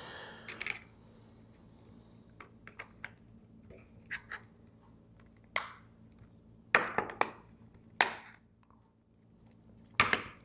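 Scattered clicks and knocks of a smartphone and small parts being handled and set down on a wooden cutting board, with a few louder knocks in the second half.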